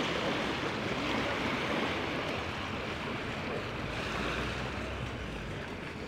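Surf washing onto a sandy beach: a steady wash of breaking waves that swells a little at the start and again about four seconds in.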